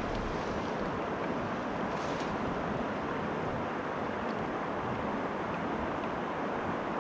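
Steady rushing noise of wind and moving river water, even throughout.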